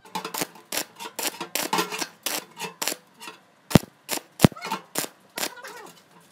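Arc welding with a stick electrode: the rod is struck against the steel ring and mesh in a run of short, irregular crackling bursts, one quick tack weld after another.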